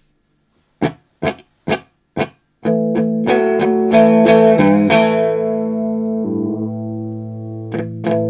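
Electric guitar played through an Electro-Harmonix Polychorus pedal: four short, clipped strummed chords, then full chords left to ring, changing chord about six seconds in and strummed again near the end.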